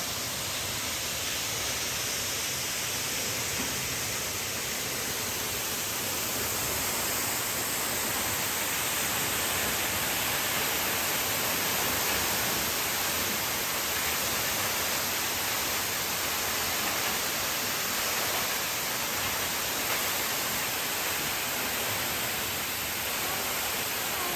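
Steady rush of falling water: an even hiss with no breaks and no distinct events.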